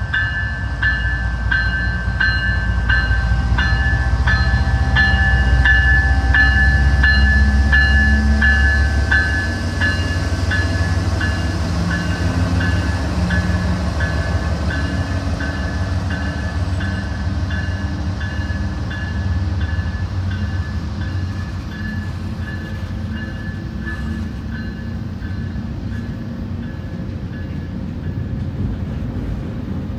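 A Canadian National GE diesel locomotive passes close by, its engine loudest in the first third, then double-stack container cars roll past with steady wheel noise on the rails. A level-crossing bell rings throughout in even, regular strokes.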